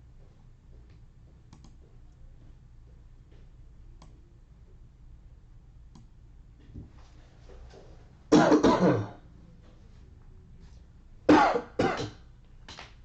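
A person coughing and clearing their throat: one loud bout about eight seconds in, then two more coughs and a small one near the end, with faint clicks before.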